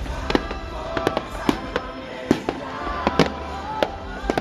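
Aerial fireworks bursting in a rapid series of sharp bangs, about two to three a second, with music playing under them.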